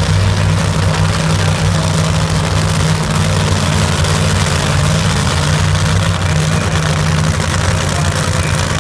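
Alcohol funny car's drag engine idling loudly and steadily, with no revving.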